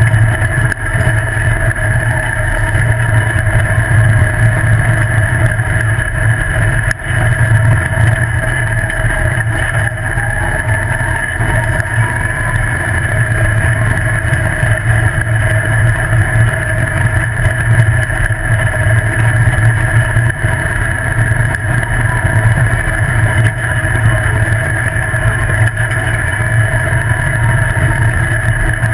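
Engine of an open off-road buggy running steadily while driving down a gravel track, picked up close to the engine, over road and wind noise. The engine pitch stays fairly even, without big revs.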